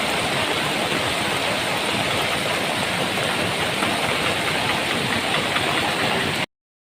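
Steady rushing of swollen floodwater: an even, unbroken noise with no separate strokes, which cuts off abruptly near the end.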